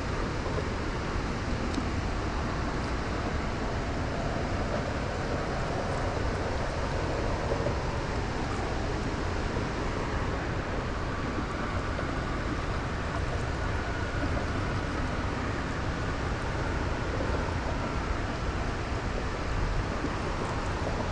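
Steady rush of fast-flowing river water below a dam, an unbroken even noise.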